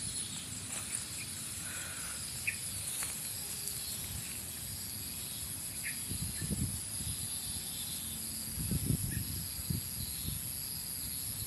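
Insects droning steadily, a continuous high-pitched buzz, with a few soft low bumps about halfway through and again later.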